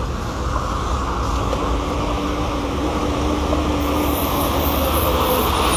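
Steady low rumble of road traffic and vehicle engines, with a faint drawn-out tone for a couple of seconds in the middle.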